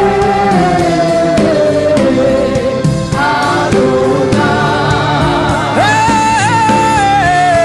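Gospel worship chant sung with music: a lead voice carries a wavering melody and a choir of voices joins in, steady and loud throughout.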